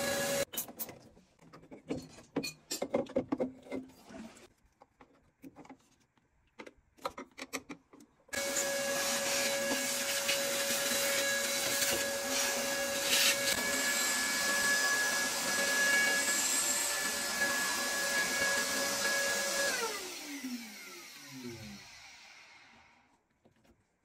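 Vacuum cleaner running with a steady whine as its hose is worked around the inside of an opened combi boiler. It stops, a series of knocks and clicks follows, then it starts again and runs for about eleven seconds. Near the end it is switched off and the motor winds down with falling pitch.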